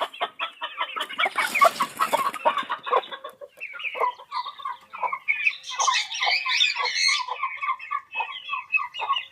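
Chickens clucking: a continuous run of short calls in quick succession, with a busier, higher-pitched layer of calls joining about halfway through.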